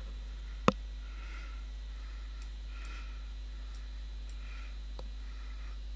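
Two computer mouse clicks, a sharp one under a second in and a fainter one about five seconds in, over a steady low hum.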